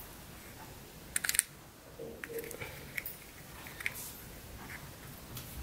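Sharp plastic clicks from fingers handling and prying at a small black plastic magic-trick box, with a quick cluster of clicks about a second in and fainter scattered clicks after.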